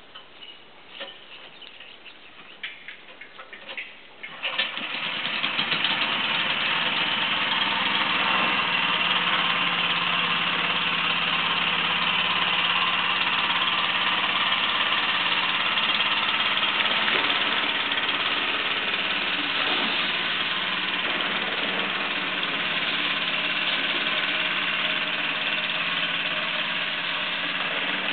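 After a few faint clicks, the boat's long-tail outboard motor starts about four and a half seconds in and then runs steadily at a constant working speed.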